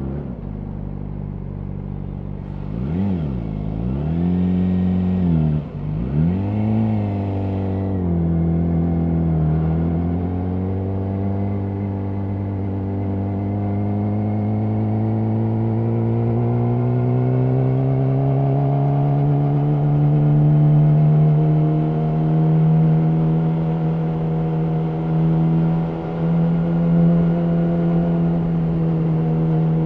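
Yamaha R6's inline-four engine running through an Akrapovic slip-on exhaust while ridden. In the first few seconds its pitch drops sharply and climbs back three times in quick succession. After that the note settles, rises slowly and holds steady and high.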